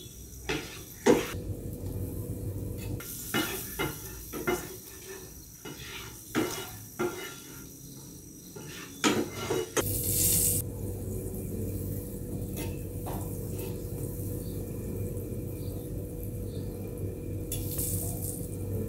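Wooden spatula knocking and scraping against a nonstick frying pan as sliced onion and garlic are stirred in sizzling margarine. About ten seconds in the stirring stops and a steady low sizzle remains, with a brief burst of noise near the end as sauce goes into the pan.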